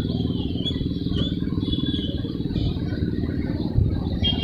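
Train running past with a steady, fast-repeating low rumble, and faint high tones above it.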